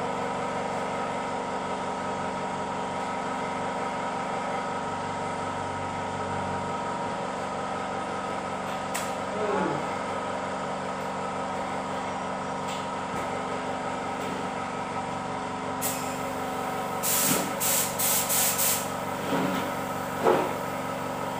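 Small portable air compressor running with a steady drone. Near the end, several short bursts of air come from the spray gun on its coiled hose.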